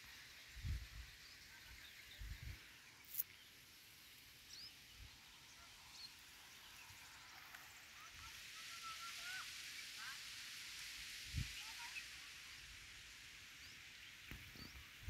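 Faint outdoor field ambience with scattered short, faint bird chirps and a few dull low thumps from the phone being handled.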